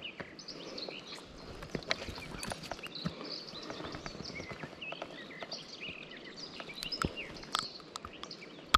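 Small birds chirping in the background, with scattered sharp clicks and taps from handling the hooked fish and the metal forceps used to unhook it.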